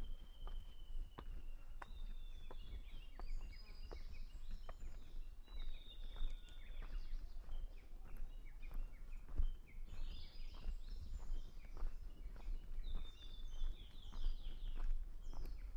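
Japanese bush warblers (uguisu) singing: a long held whistle at the start, then several phrases of quick, descending notes. Scattered sharp clicks and a low rumble run underneath.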